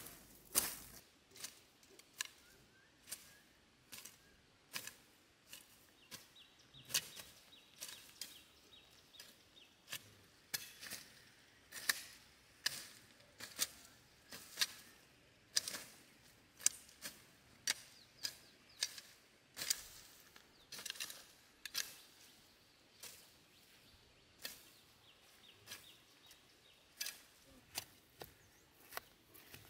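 Weed stems snapping and rustling as they are pulled up by hand: short sharp snaps at an uneven pace, about one or two a second, over a quiet rustle.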